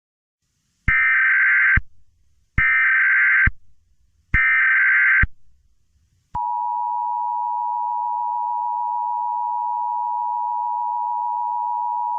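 Emergency Alert System SAME header: three bursts of harsh digital data tones, each about a second long with short gaps. About six seconds in, a steady EAS attention tone begins, announcing an emergency alert.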